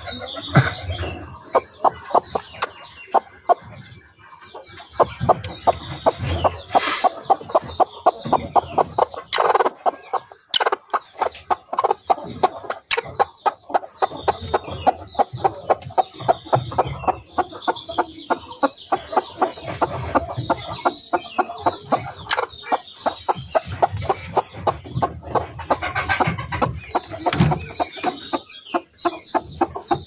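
Aseel hens clucking in long runs of short, rapid clucks, with high chirps over them.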